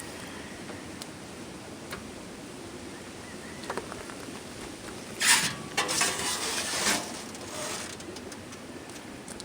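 About two seconds of scraping and clattering a little past halfway, as a scooter is rolled into a freshly welded metal parking rack.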